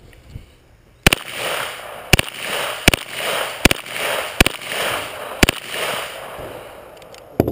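Gunshots from a Colt M16 fitted with a Spikes Tactical 9mm upper: seven sharp reports, the first about a second in and the rest spaced a little under a second apart, the last near the end. Each report is trailed by a short echo.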